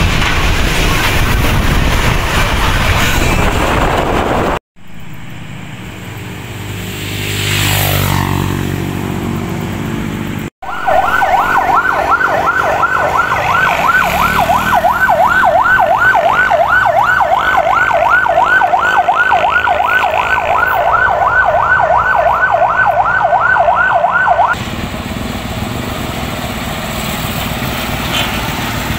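Electronic siren of a blue-light escort vehicle, warbling rapidly up and down about three or four times a second over the hum of heavy truck engines. Before it comes the loud road and engine noise of rail-carrying flatbed trucks passing close, then an engine revving up.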